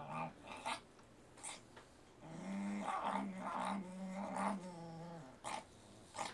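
Small dog growling over her bowl of ice cream, guarding her food: a brief growl at the start, then a longer steady one from about two to five seconds in. A few short sharp clicks fall between the growls.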